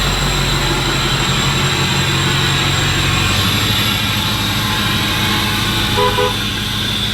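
Dually pickup truck running and being moved with a worn-out rear differential that has been drained of its fluid and is running dry. The engine sound is steady, with a steady high whine over it.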